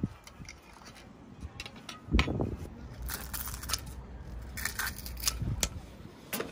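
Cookware and utensils being handled: scattered clicks, clinks and scrapes, with a low thump about two seconds in.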